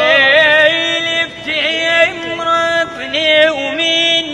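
A young man singing an Iraqi Arabic song with a melismatic style, holding long high notes with wavering ornaments between short breaks.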